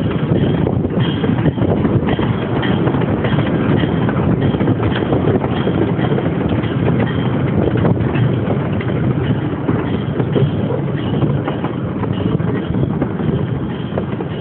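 Small open-air park train running along its track: a steady rumble with irregular clattering knocks from the wheels and cars, with wind rushing past the microphone.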